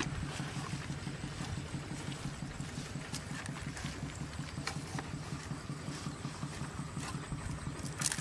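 A small engine idling steadily, a fast even throb, with a few faint clicks over it.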